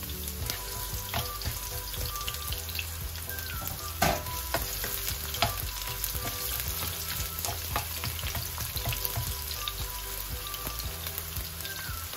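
Diced onion, garlic and fresh chili sizzling in hot olive oil in a nonstick wok, stirred with a spatula that scrapes and taps against the pan, with one sharper tap about four seconds in.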